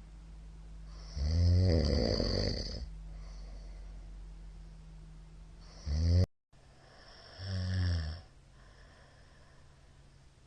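A middle-aged man snoring loudly in his sleep: three snores, the first and longest about a second in, a shorter one halfway through that cuts off suddenly, and a third near the end. A faint steady hum lies under them.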